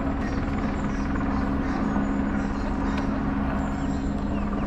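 A steady engine drone holding two low, unchanging tones over general outdoor background noise.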